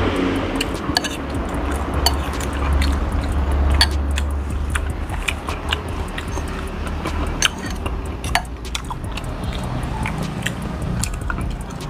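Someone eating soup and rice with a spoon and fork: close-up chewing, with scattered sharp clinks of the cutlery against the bowl.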